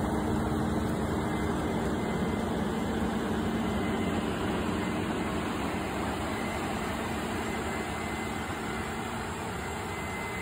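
Oxbo 6165 self-propelled pea harvester at work: a steady drone of its diesel engine and harvesting machinery, slowly fading over the seconds.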